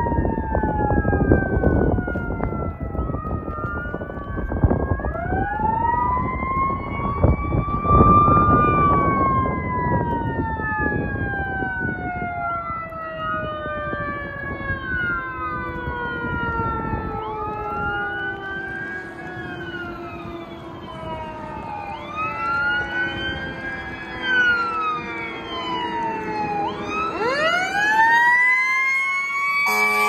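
Fire engine siren wailing, its pitch rising and falling over and over in overlapping sweeps, heard from a distance and growing louder near the end as the truck approaches.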